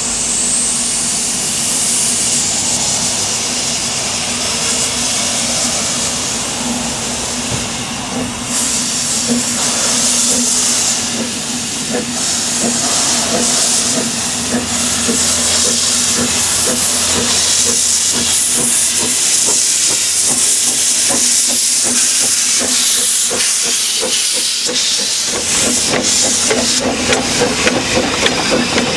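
Narrow-gauge steam locomotive hissing loudly with escaping steam as it moves up and passes, a quick rhythmic beat from its exhaust and running gear growing stronger near the end.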